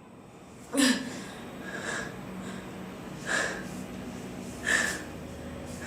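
A person sneezing: one sharp, loud, voiced sneeze about a second in, followed by four shorter, breathy sneezes or sniffs spaced roughly a second and a half apart.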